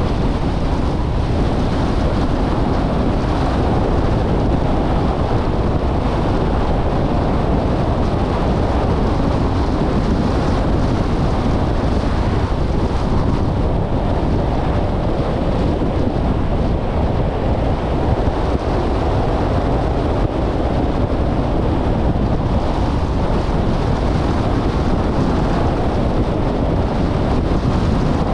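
Steady rush of wind on the microphone over the road noise of a moving car, unbroken throughout.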